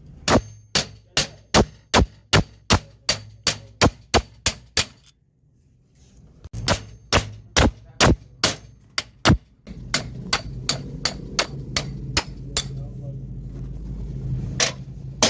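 Hammer striking metal in two runs of quick, even blows, about two to three a second, driving a pulley bearing during alternator bearing replacement. A steady low hum starts about ten seconds in.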